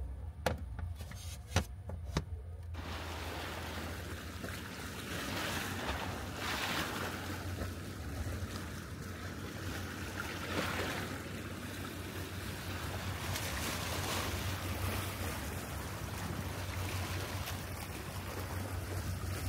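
A few light knocks as a wooden table board is handled. Then, from about three seconds in, small waves wash and lap at the shore with wind noise, swelling and easing over a low steady hum.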